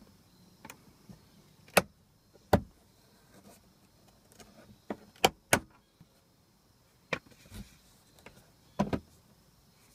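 Overhead headliner panel of a BMW E46 M3 being pried loose with a plastic trim removal tool: a series of sharp clicks and snaps, about half a dozen spread over several seconds, as its retaining clips let go.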